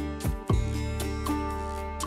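Background music with sustained tones over a steady beat, with two deep thumps about a quarter and half a second in.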